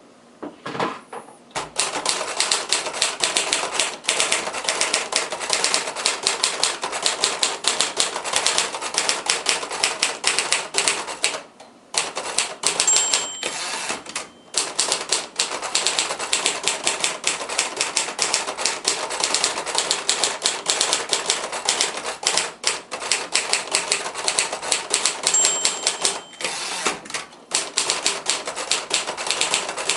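1958 Royal Aristocrat manual portable typewriter being typed on at a brisk pace: a fast, dense run of key and typebar strikes. Twice the bell gives a short ring, each time just before a brief pause in the typing.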